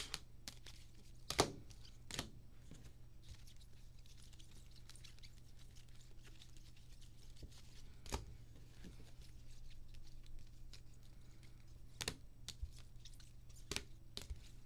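Foil trading cards being handled and sorted by hand: a quiet sliding and rustling of card stock with a few sharp clicks and taps as cards are squared up and set down on a table, over a faint steady low hum.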